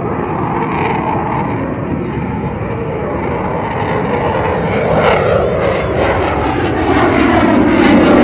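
Eurofighter Typhoon's twin EJ200 jet engines in reheat (afterburner), a steady loud roar that grows louder toward the end, as the jet pulls from a slow, gear-down pass into a loop.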